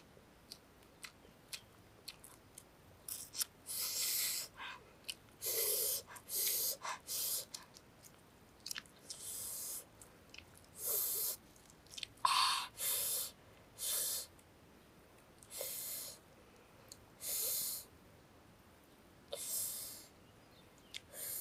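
Roasted eggs being peeled by hand: the shell crackles in short bursts with small sharp clicks between, alongside chewing.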